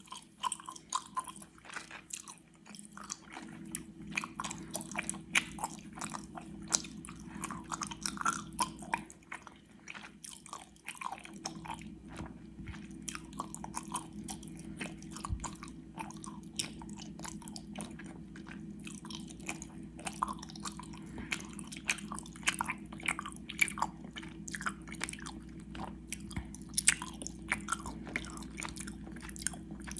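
Close-miked, wet, sticky chewing of gummy worms: a constant run of irregular mouth clicks and squelches as the chewy candy is worked between the teeth.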